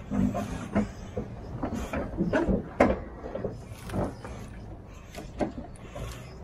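Irregular clunks and knocks over the low steady rumble of a timber truck's running diesel engine. The loudest knock comes near the middle.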